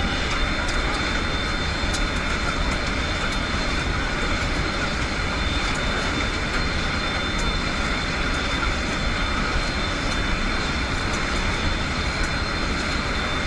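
Military transport aircraft's engines and the rush of air through its open rear cargo ramp in flight, a loud, steady noise.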